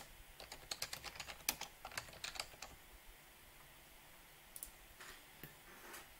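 Typing on a computer keyboard: a quick run of key clicks for the first two and a half seconds or so, then a few scattered clicks near the end.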